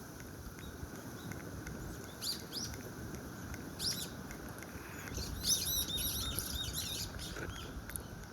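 Birds calling with short, high chirps: single calls about two seconds in and again near four seconds, then a quick run of chirps from about five to seven seconds. A steady low rumble runs underneath.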